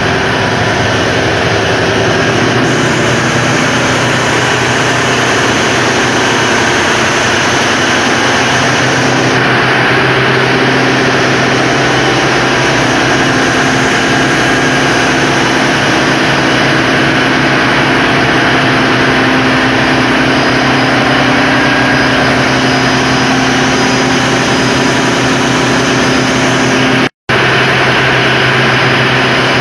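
Loud, steady din of a ship's engine room with its Mitsubishi 1400 hp marine diesel engine running at constant speed, a deep even hum under a dense mechanical roar. The sound breaks off for an instant near the end.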